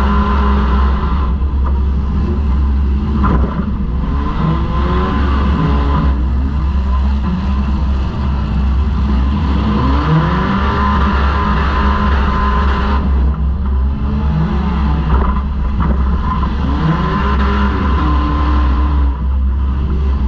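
A four-cylinder demolition derby car's engine, heard from inside the car, revving up and falling back again and again as it drives. A few sharp knocks come through near the start and again later.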